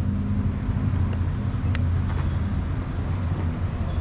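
Mercedes-Benz O500R coach's rear-mounted diesel engine idling with a steady low hum. A single sharp click comes about two seconds in.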